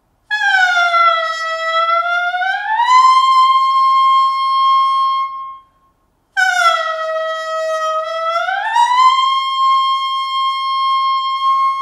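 Clarinet mouthpiece and reed blown on their own, two long tones. Each starts low and sags flat, the sound of a too-loose embouchure, then slides up and holds a steady higher pitch.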